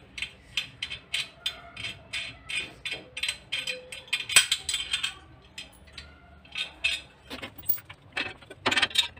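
Metal microwave wall-bracket parts clicking and rattling as the arm is handled and fitted onto the wall-mounted upright: a run of light metallic clicks and scrapes, loudest about four seconds in and again near the end.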